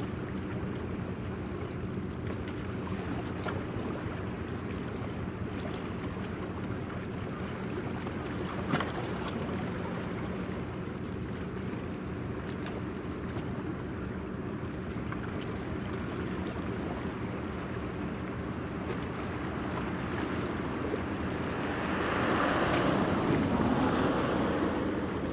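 Helicopter destroyer JS Kaga's engines running with a steady low hum as the ship moves under way, with wind noise on the microphone. A single click comes about nine seconds in, and a louder rush of noise swells near the end.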